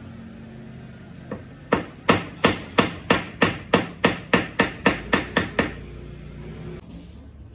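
Steel hammer striking a small piece of gold held with pliers on a small steel anvil. A single tap comes first, then a steady run of about fourteen sharp metal-on-metal blows, roughly three a second, which stops before the end.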